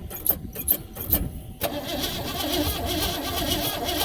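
A 1970 GMC pickup's engine cranking over on the starter with a rhythmic chugging, then catching about a second and a half in and running steadily on its newly replaced mechanical fuel pump.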